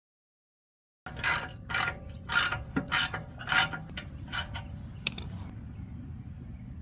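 Hand ratchet wrench working loose the screws that hold the old slip-on exhaust on a Harley-Davidson Electra Glide. There are about seven clicking back-strokes half a second apart, then the clicking stops and only a low background rumble remains.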